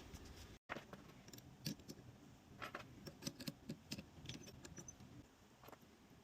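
Faint, irregular light clicks and taps, scattered over a few seconds.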